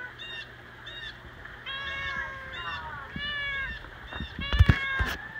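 A cat shut in a wire live trap meowing over and over in short arched calls. A few loud knocks come near the end.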